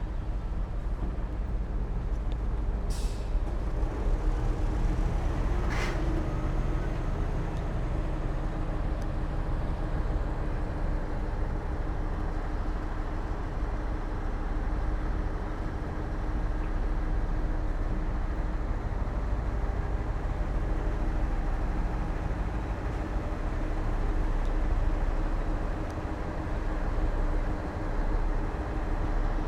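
Diesel engines of heavy earthmoving machinery running steadily under load, with two short hisses about three and six seconds in.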